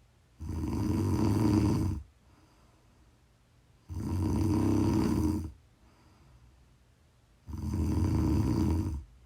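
Snoring: three long snores about three and a half seconds apart, each lasting about a second and a half.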